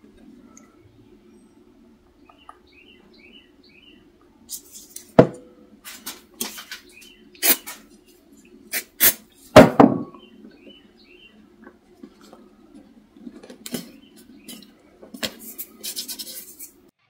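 Brass shotgun shell heads clicking and clinking as they are handled and pressed into holes in a wooden frame, a scatter of sharp knocks with the loudest few in the middle, over a faint steady hum.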